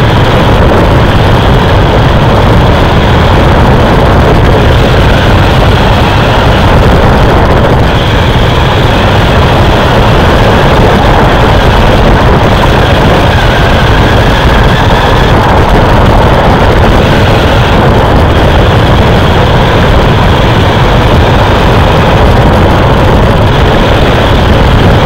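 Steady, loud, distorted running noise of a radio-controlled racing truck heard from on board: motor, drivetrain and tyre rumble on asphalt, with no pauses.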